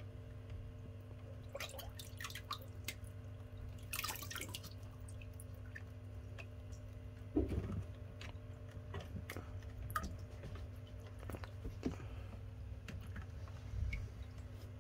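Water dripping and small splashes in the shallow water left in an aquarium container as shrimp and fish are caught out of it, with scattered light knocks and a louder knock about seven seconds in, over a steady low hum.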